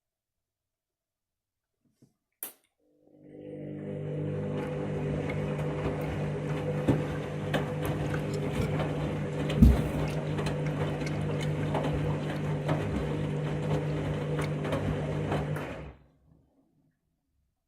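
Washing machine running: a steady motor hum with water noise and scattered clicks, and one heavy thump from the drum partway through. It starts a few seconds in after a single click and cuts off suddenly near the end.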